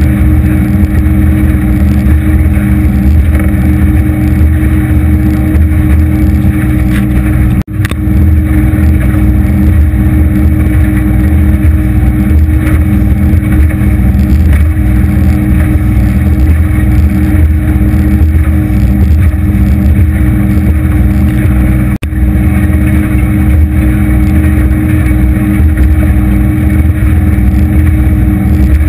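250 hp Evinrude outboard running steadily at cruising speed, driving an aluminium Anytec 750 SPD boat across choppy water, with the rush of water and wind over it. The sound cuts out for an instant twice.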